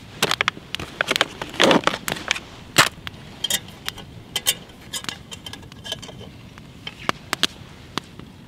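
Clinks and clatter of a metal camp cook pot, its lid and its wire bail handle being handled and lifted, as sharp clicks and knocks. They come thick over the first few seconds, then sparser, with a brief metallic ring now and then.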